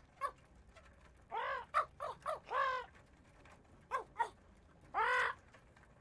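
A parrot squawking repeatedly: about six short calls, each rising then falling in pitch, bunched together in the first half and then two more spaced out near the end.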